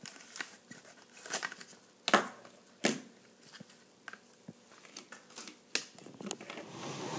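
A small cardboard box and the plastic bag inside it being opened and handled: scattered clicks and crinkles, with two louder snaps about two and three seconds in and a swelling rustle near the end.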